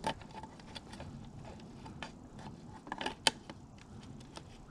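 Irregular light clicks and knocks from a plastic deer-feeder timer box being handled and pushed into its mount under a corn feeder's hopper. The sharpest click comes a little past three seconds in.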